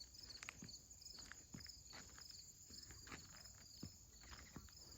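Faint outdoor insect chorus, a steady high pulsing chirr, with a few faint scattered clicks.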